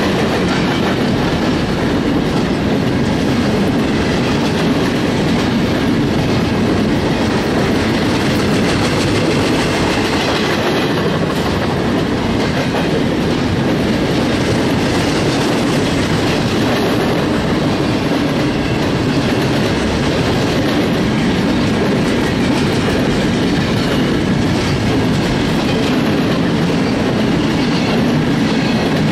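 Freight cars of a BNSF train rolling past close by at steady speed: a continuous rumble of steel wheels on rail with the clickety-clack of wheels over rail joints.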